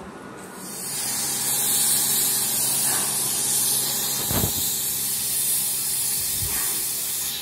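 Steam locomotive 3801, an NSWGR C38-class streamlined Pacific, venting steam from the top of its boiler with a loud, steady hiss. The hiss starts about a second in.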